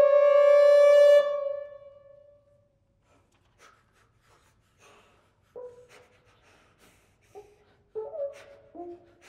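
A trio of French horns holds a loud sustained chord that cuts off about a second in and rings away in the hall's reverberation. After a few seconds of near quiet, the horns resume with short, soft, separate notes.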